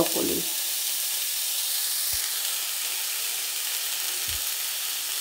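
Stir-fry vegetables sizzling in oil in a stainless steel pan, a steady hiss, with a soft low thump about two seconds in and another near four seconds.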